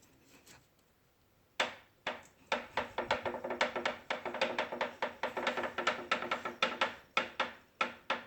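Bowflex VeloCore exercise bike clicking from the pedal and flywheel area as the drive turns. The clicks start about a second and a half in, then come fast and dense before thinning out near the end. It is a fault noise, in the end cured by replacing the flywheel.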